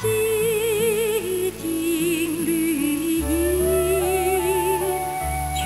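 A woman singing a Chinese art song in long held notes with wide vibrato. The melody steps down about halfway in and rises again near the end, over soft sustained instrumental accompaniment.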